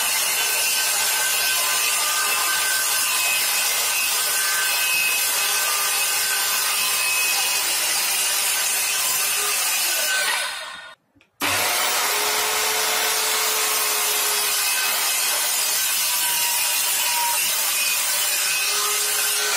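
Handheld circular saw cutting through plywood: a loud, steady run of the blade in the wood. The sound breaks off sharply for under a second about halfway, then the cutting goes on.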